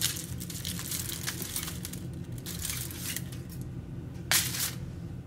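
Short crinkles and rustles of aluminium foil being handled around a baked fish, with light spoon and plate noises; the loudest crinkle comes near the end.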